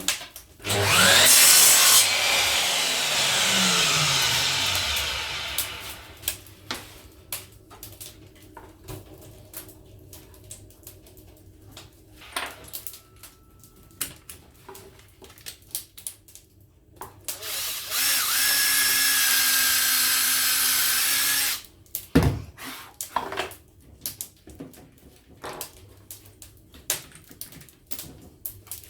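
A power tool trimming a wooden part runs twice: first about a second in, its motor pitch falling as it winds down over several seconds, then a steady run of about three and a half seconds two-thirds of the way through. Between the runs come scattered knocks and clicks of wood being handled.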